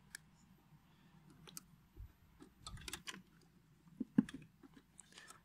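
Irregular light clicks and rattles of long pliers knocking against plastic connectors and wiring in a car's ECU box while a wire is fished out. The clicks come thicker around the middle and the loudest falls near the end.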